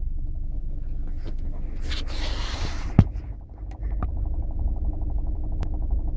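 Kia Optima engine running with a rapid, even knocking from inside the engine, which the official dealer calls a normal characteristic of this engine. About two seconds in there is a brief rustle, and a sharp click at about three seconds.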